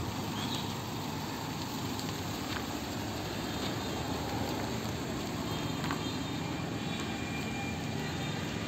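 Small Toyota hatchback moving off and driving slowly away across a dirt yard: a steady low engine rumble with tyre noise.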